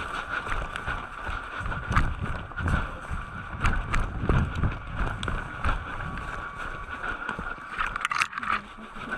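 Footsteps and gear jostling a body-worn camera as the player moves forward, with irregular low thumps about two a second over steady handling noise. A few sharp clicks sound near the end.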